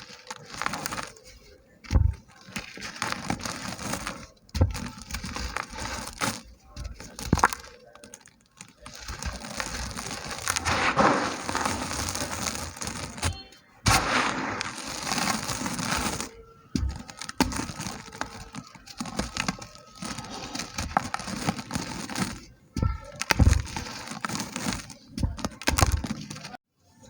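Dry, soft red dirt pieces crumbling: gritty crackling and crunching made of many fine cracks, in bursts of one to several seconds with short pauses between them.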